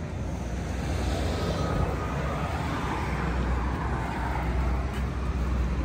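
Steady low rumble with an even hiss of outdoor vehicle and traffic noise, with no distinct knock or click standing out.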